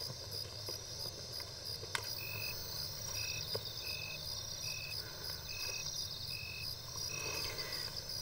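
Night ambience of crickets and other insects. A steady high trill runs throughout, and from about two seconds in a lower chirp repeats about every three-quarters of a second, seven times.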